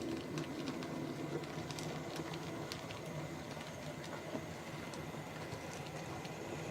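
OO-scale model train running along the track: a steady electric motor hum with light irregular clicks from the wheels on the rails.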